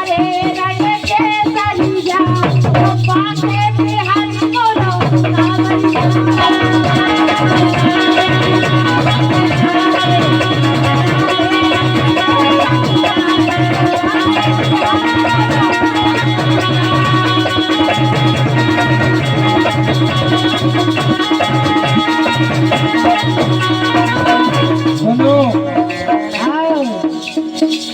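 Bundeli rai folk music: an instrumental passage with a steady drum beat, rattling percussion and a held sustained tone. A voice is briefly heard near the start and near the end.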